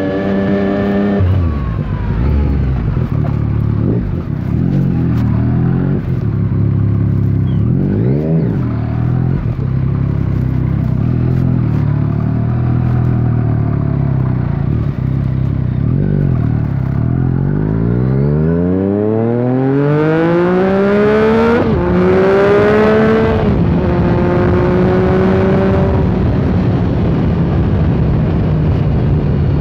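Yamaha MT-09's inline three-cylinder engine under way: a short rev that falls away at the start, a long stretch at low steady revs with one brief blip, then a long climb in revs through a gear change that levels off near the end.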